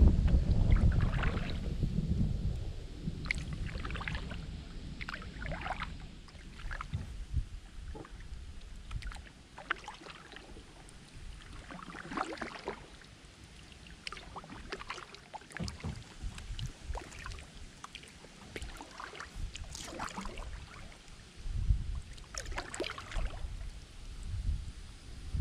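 Kayak paddle strokes: the blades dip into the flat water every second or two with small splashes and drips. Wind buffets the microphone with a low rumble in the first couple of seconds and again near the end.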